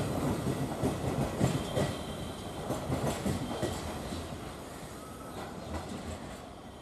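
Passenger train coach wheels clattering over the track in an uneven run of knocks, fading steadily as the rear of the train rolls away.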